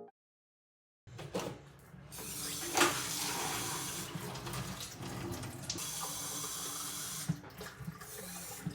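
Water running steadily from a tap, beginning about a second in, with a sharp click near the start of the flow.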